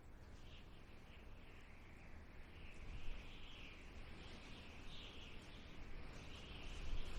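Faint desert wind blowing: a low rumble with a thin, wavering high hiss. It gusts up near the end.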